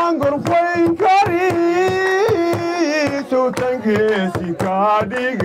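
A man singing into a microphone, holding long wavering notes that slide between pitches, over a quick, regular percussion beat.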